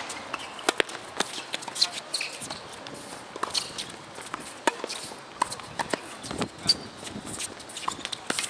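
Doubles tennis rally on a hard court: sharp pops of rackets striking the ball and the ball bouncing, irregularly spaced, with players' footsteps and short sneaker squeaks on the court surface.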